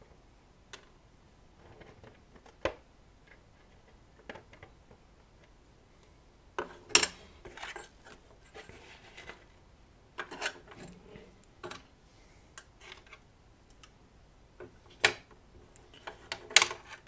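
Scattered clicks and light knocks of steel forceps and a wire being handled against the plywood baffle of a speaker cabinet, with the loudest clatter about seven seconds in and a few more near the end.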